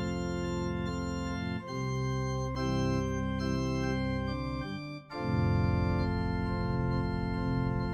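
Organ music playing slow, sustained chords, changing to new chords about a second and a half in and again about five seconds in.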